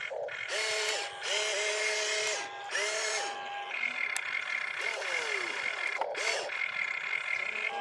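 RC excavator's electric motors whining as the boom, arm and swing move. The first few seconds are short whining runs that rise in pitch as they start and drop as they stop; a longer steady whine runs through the second half, with a couple of falling glides as motors wind down.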